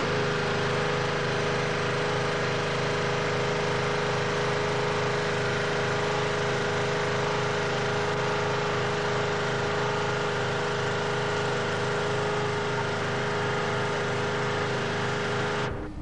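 Small portable generator engine running steadily at constant speed, a hum with several fixed pitches. It cuts off suddenly near the end.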